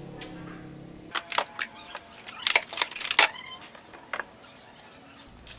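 Hard objects used as weights being lifted off a wooden UV exposure box and set down: a quick run of sharp knocks and clinks between about one and four seconds in, some with a short ring.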